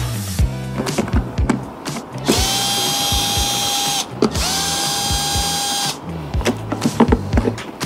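Cordless drill/driver spinning screws on a car headlight housing, in two steady whining runs of under two seconds each, the pitch rising quickly as the motor spins up. Background music with a steady beat plays underneath.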